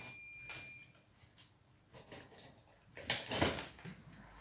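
Cardboard carton being opened by hand: faint handling at first, then a near-quiet pause, then the box flaps are pulled open with a scraping rustle about three seconds in.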